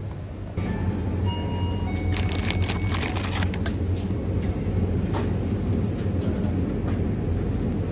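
Steady low hum of a convenience store's background, with a few brief electronic beeps in the first three seconds and a cluster of clicks and rustles of handled packaging about two to three seconds in.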